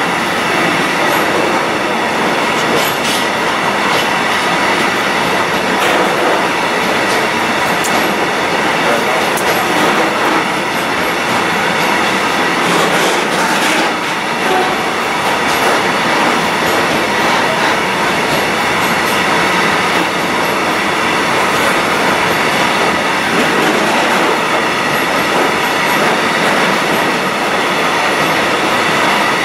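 Container freight train of loaded flat wagons rolling past close by at speed: a steady, loud rolling noise of steel wheels on rail, with scattered clacks and a thin steady high whine.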